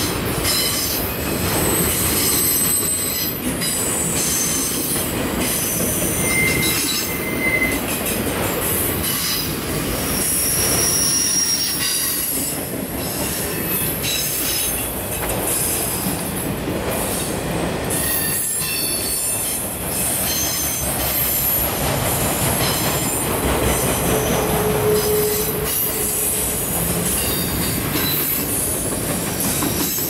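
Autorack freight cars rolling past with a steady rumble of wheels on rail. High-pitched wheel squeals come and go throughout.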